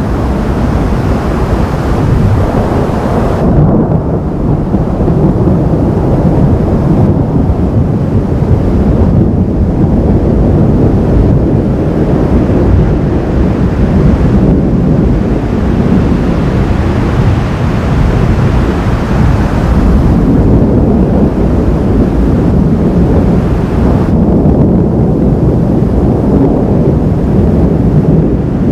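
Thunder rumbling continuously as a deep, steady roll with no sharp crack.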